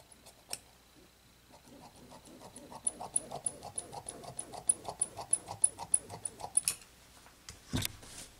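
Dressmaking shears snipping through rayon fabric in a steady run of cuts, about four a second, each with a crisp metallic tick of the blades closing. A short knock follows near the end.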